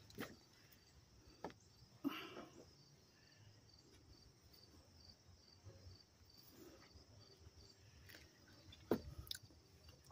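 Faint outdoor ambience of insects chirping in a steady high pulse, a few times a second, with a few scattered sharp clicks, the loudest near the end.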